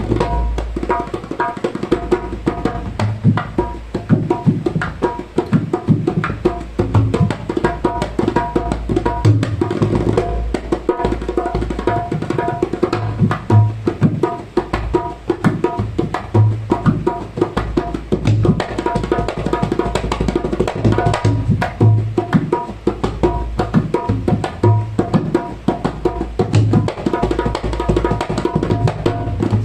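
Dholak played solo in a fast, continuous rhythm: dense crisp strikes on the small treble head, with deep strokes on the bass head recurring every second or so.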